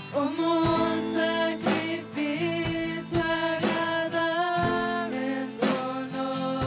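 A live worship band playing a Spanish-language worship song: women singing the melody with harmony, over acoustic and electric guitar and a drum kit striking about once a second.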